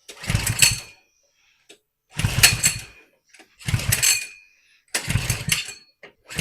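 Small single-cylinder engine of a 100cc Coleman minibike being pull-started with its recoil starter: four short bursts of cranking, about one every second and a half, each pull turning the engine over briefly without it running on.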